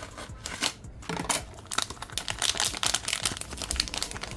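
Thin plastic crinkling with quick small clicks as parts are handled, busiest through the middle.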